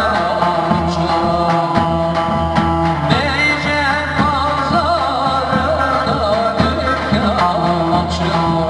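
Turkish çiftetelli dance tune (oyun havası): an ornamented, wavering lead melody over a steady, regular drum beat and bass line.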